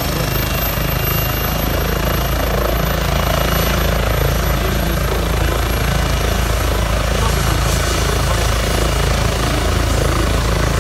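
Medical helicopter running on the ground with its rotor turning: a steady turbine whine over a fast, even rotor beat, getting a little louder a few seconds in.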